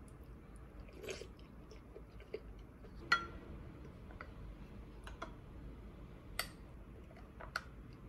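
A person eating: quiet chewing with a few sharp clicks scattered through it, the loudest a clink about three seconds in that rings briefly.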